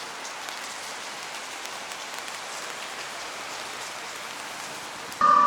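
A steady, even rushing hiss with no distinct events. Near the end a much louder pitched tone with several overtones starts abruptly.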